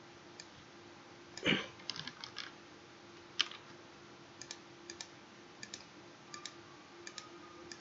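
Faint, irregular clicks of a computer mouse and keyboard, about a dozen scattered taps with a small flurry a second and a half to two and a half seconds in, over a faint steady hum.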